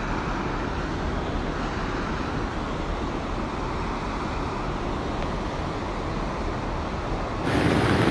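Muddy floodwater rushing, a steady noisy rush; about seven and a half seconds in it cuts to a louder, hissier rush of water.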